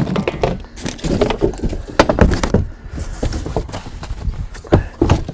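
Irregular knocks and clatter of a metal bagger-kit frame and brackets being handled and pulled out of a cardboard box, with a few louder bangs about two seconds in and near the end.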